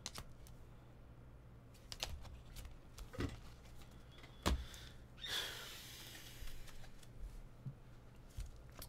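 Trading cards being handled on a table: scattered light clicks and taps, with a brief sliding swish about five seconds in, over a steady low electrical hum.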